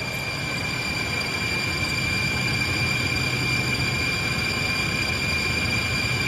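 Steady low rumbling drone with a thin high-pitched hum over it, unchanging throughout, with no distinct events.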